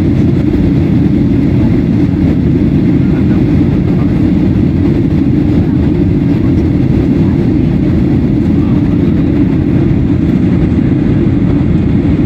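Steady low roar of a jet airliner's engines and rushing air, heard inside the passenger cabin during the climb after takeoff.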